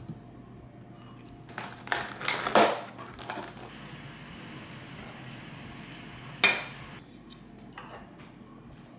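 Dishes being handled: a few knocks and clinks as a muffin is set on a ceramic plate, then a spatula scraping veggie scramble out of a ceramic-coated frying pan onto a plate, with one sharp clack about six and a half seconds in.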